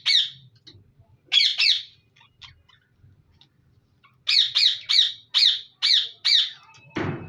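Budgerigars squawking: a couple of harsh calls, then a run of about six in quick succession, with a dull thud near the end.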